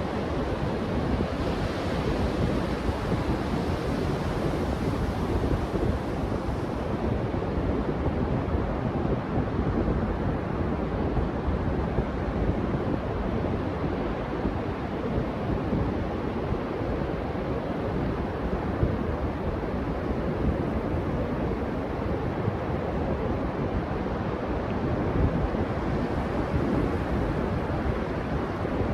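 Ocean surf washing onto a beach, with wind buffeting the microphone: a steady, unbroken rushing noise.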